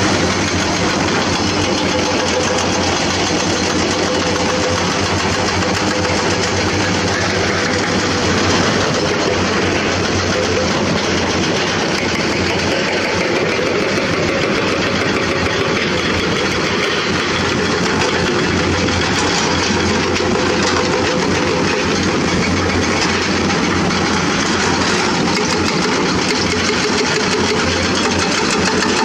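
Crawler excavators' diesel engines running steadily under work, a constant loud mechanical drone.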